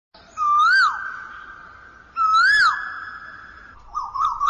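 A whistle-like pitched call, twice: each call rises and drops sharply, then holds a steady tone. Near the end it breaks into a quick warbling trill.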